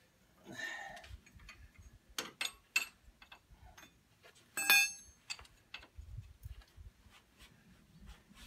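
Wrench and metal parts clicking and tapping irregularly while the brake linkage of a Štore 404 tractor is bolted back together, with one loud ringing metal clink a little past halfway.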